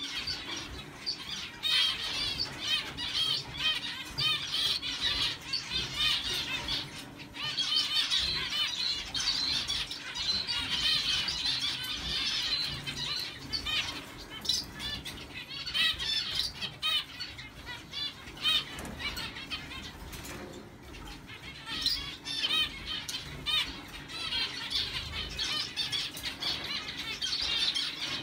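Zebra finches chirping and calling: a near-continuous stream of short, high, overlapping notes that thins out briefly now and then.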